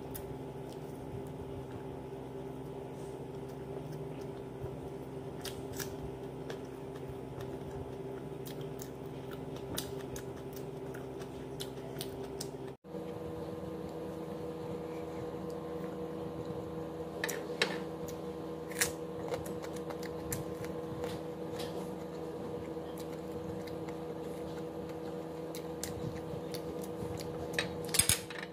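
Close-up eating sounds of roast chicken and rice eaten by hand: irregular sharp clicks and smacks of chewing and fingers working the food, over a steady low hum. About halfway through the sound cuts out for an instant and the hum comes back at a slightly different pitch.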